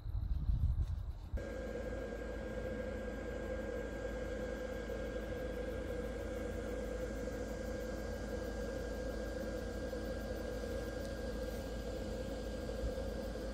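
A steady mechanical hum with a thin, high, steady whine over it. It is preceded by a brief low rumble that cuts off abruptly about a second in.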